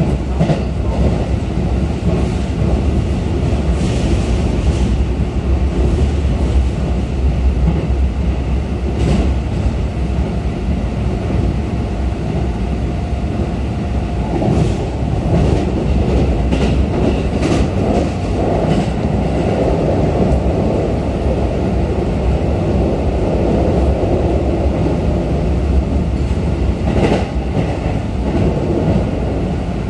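Running noise inside a passenger car of a Keikyu New 1000 series electric train at speed. A steady rumble of the wheels on the rails, with scattered clicks and clacks from the track throughout.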